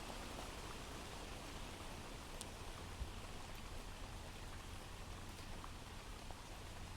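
Faint, steady rain falling, from a recorded rain ambience, with a few soft drop ticks and a low steady hum underneath.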